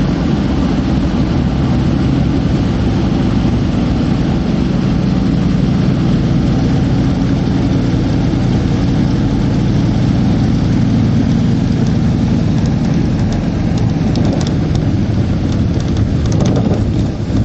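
A small plane's engine drone heard from inside the cabin, steady and even with a low hum. Short crackles join it in the last few seconds.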